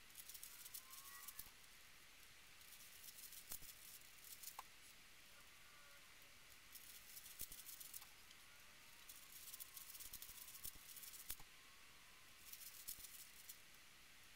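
Faint bursts of plastic clicking and rattling from a 5x5 puzzle cube's layers being turned by hand, in several short spurts with pauses between.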